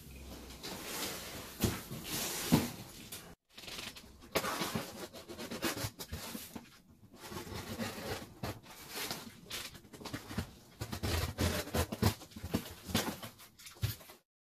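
A cardboard parcel being opened: a blade cutting through packing tape, with scraping, clicks and rustling of the cardboard flaps and packing in short irregular bursts.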